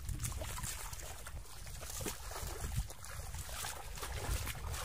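Feet wading and sloshing through shallow muddy water, with scattered small splashes over a steady low rumble.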